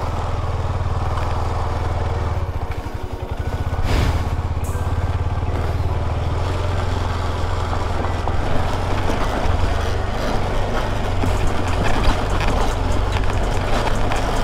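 KTM 250 Adventure's single-cylinder engine running under load on a rough off-road trail, easing off briefly about three seconds in and picking up again, with a sharp knock about four seconds in and scattered knocks and rattles afterwards.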